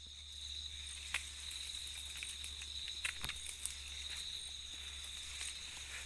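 Night insects, crickets, chirring steadily at one high pitch, with a few sharp clicks about a second in and again around three seconds in.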